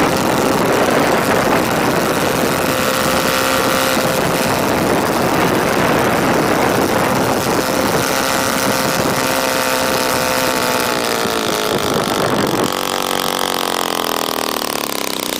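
DLE-222 four-cylinder two-stroke gasoline engine running loud, turning a large propeller on a thrust stand. About twelve and a half seconds in it throttles back and the pitch falls steadily as it slows.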